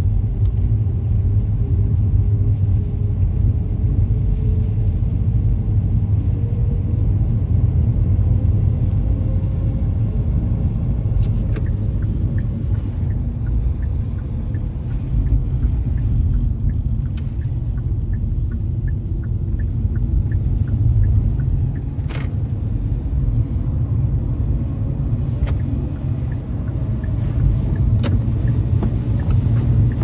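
Car cabin noise while driving: a steady low rumble of engine and road, with a faint engine tone slowly rising over the first ten seconds as the car picks up speed, and a few sharp clicks in the second half.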